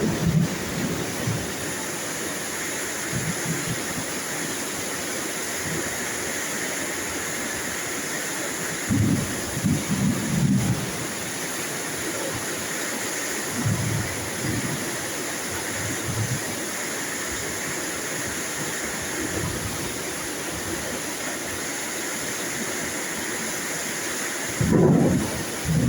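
Steady rain falling, with several short, low rumbles of thunder: a cluster about nine to eleven seconds in, smaller ones around fourteen, sixteen and nineteen seconds, and a louder one near the end.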